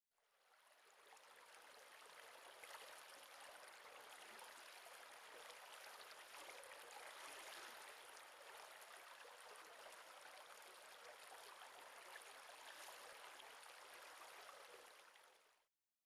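Faint, steady rushing of running water, fading in at the start and out near the end.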